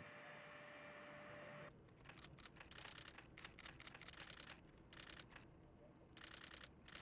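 Faint, rapid clicking of camera shutters firing in short irregular bursts, starting about two seconds in after a faint steady tone cuts off.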